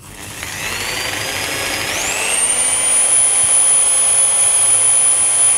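Handheld electric drill running and drilling a 5 mm hole in a scooter engine's crankcase, to be tapped for an M6 thread. Its motor whine rises in pitch about two seconds in, then holds steady.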